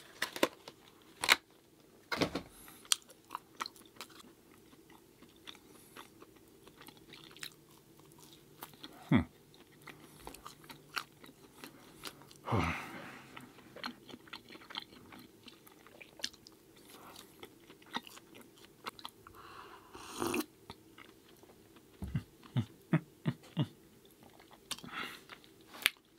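A person chewing and biting food close to the microphone, eating-show style, with many small mouth clicks and a few louder sharp knocks.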